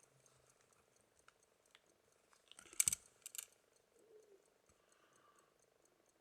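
Victorian key-wound fusee pocket watch with a 9-jewel lever movement ticking, a faint, rapid, even tick. A brief cluster of louder clicks and knocks comes about three seconds in.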